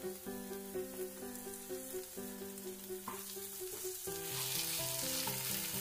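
Chopped tomatoes and onions sizzling in ghee in a kadhai as they are stirred with a wooden spoon; the sizzling grows louder about four seconds in. A simple background melody plays along.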